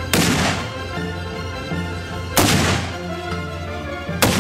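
Three shots from a Highland Arms HAMR-99 .50 BMG rifle, about two seconds apart, each a sharp report that dies away over about half a second. Background music plays underneath.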